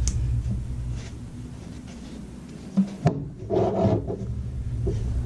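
Hands rubbing and pulling a furry windscreen on a Boya shotgun microphone: soft rustling with small clicks, and a louder stretch of rubbing about three seconds in.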